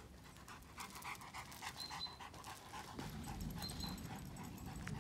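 A Dogo Argentino panting fast, a quick even run of short breaths, about six a second, that fades after about three seconds.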